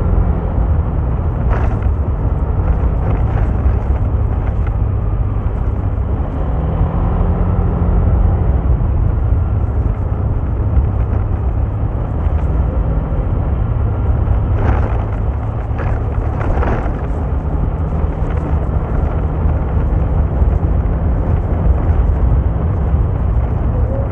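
A vehicle on the move: a steady, heavy low rumble of engine and road noise, with the engine tone shifting in pitch now and then and a few short knocks about 2 seconds in and again around 15 to 17 seconds.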